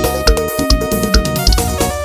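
Instrumental forró piseiro music: a steady kick-drum beat about twice a second under sustained keyboard tones.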